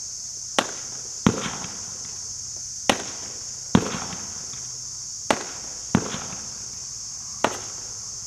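Brothers Fireworks 'Captain Sam' daytime parachute cake firing: seven sharp bangs about a second apart, some with a short fading tail.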